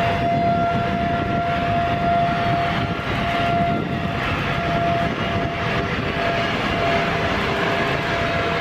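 Jet aircraft engines running with a steady roar and a steady high whine over it.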